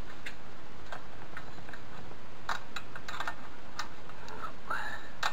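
Irregular metallic clicks of a 22 mm spanner being worked on the rear axle nut of a Derbi moped, tightening the nut, with a short squeak near the end.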